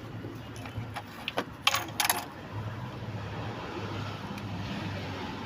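Metal parts and tools being handled while a throttle body is fitted to the intake: a few light clicks, then two short, loud metallic clatters about two seconds in, over a steady low hum.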